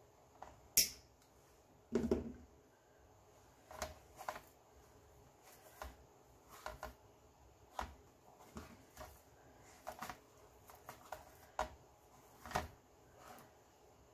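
Hands handling and fluffing a poly mesh (poly burlap) bundle and its ribbon on a wire wreath form: scattered soft rustles and small clicks, with a sharp click about a second in and a louder rustle a second later.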